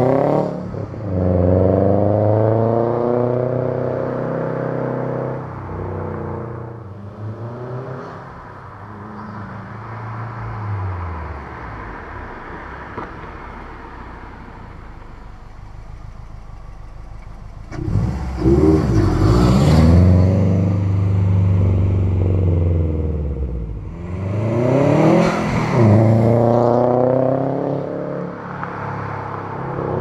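A car's engine rising in pitch for a few seconds, then falling away and fading. After a quieter stretch, a car passes close by twice about six seconds apart, its engine note sweeping in pitch as it goes by.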